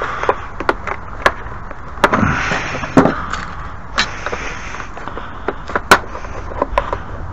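Sharp clicks and light knocks of small screws and hardware being handled and tried in a fitting, with a short rustling scrape about two seconds in and another about four seconds in.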